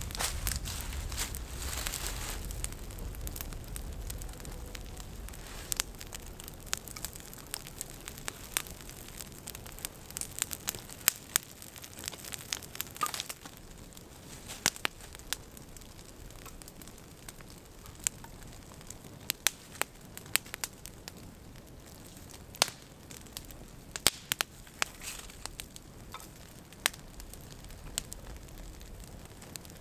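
Wood fire crackling, with frequent sharp irregular pops, as kindling burns in the gap between two long white ash logs.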